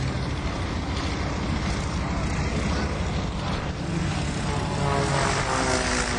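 Extra 300S aerobatic plane's propeller and six-cylinder Lycoming engine running hard in flight, a steady propeller rasp whose pitch shifts from about four seconds in as the plane manoeuvres.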